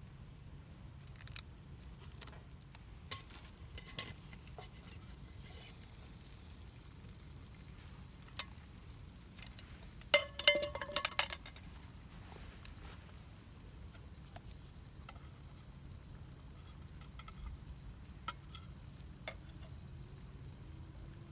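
Wood campfire crackling with scattered single pops, and a quick run of loud clatters about ten seconds in.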